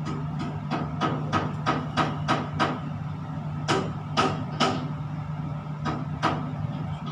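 A run of short, sharp knocks, about three a second, then a few louder, more widely spaced ones about halfway through and two more near the end, over a steady low hum inside a tower crane's operator cab.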